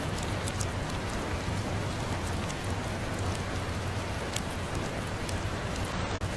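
Steady rain with a low rumble and scattered small ticks of drops or crackles. The sound briefly dips about six seconds in.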